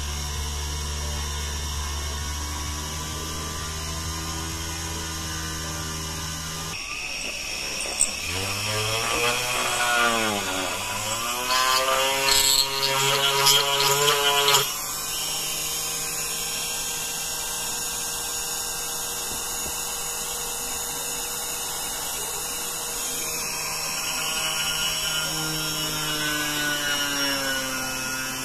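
Homemade drill built from a 775 DC motor, spinning a thin bit through a block of wood. The motor's whine sags in pitch as the bit bites in, then climbs back, with louder drilling noise near the middle and another pitch dip near the end.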